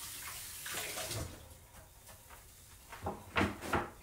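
Kitchen tap running as hands are rinsed under it, shut off about a second and a half in. A few sharp knocks follow near the end.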